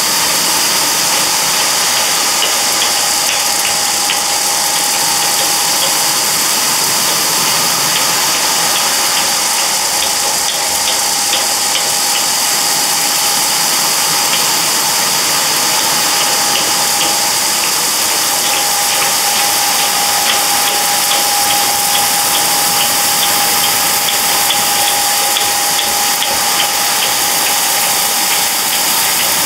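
A rotating konpeito pan running steadily: a motor hum with a steady whine under a constant hiss, and a fine, continuous clicking rattle of small sugar candy grains tumbling against the tilted metal pan.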